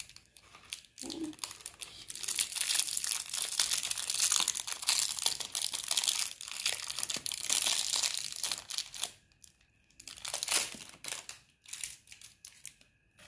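Crinkly pink wrapper from a LOL Surprise ball being crumpled and torn open by hand. Dense crackling runs for several seconds, then a few shorter crinkles near the end.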